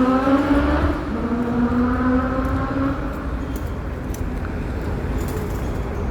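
A motor vehicle's engine passing by with a steady hum that drops away about three seconds in, leaving a low traffic rumble.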